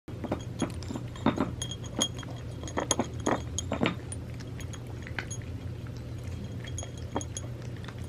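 A cat crunching dry treats from a ceramic saucer: sharp crunches and clinks of the hard pieces against the dish, thickest in the first four seconds and sparser after, over a low steady hum.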